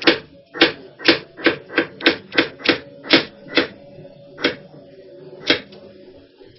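Kitchen knife chopping food on a cutting board: about a dozen sharp, irregular knocks, roughly two a second, coming closer together and then spacing out near the end.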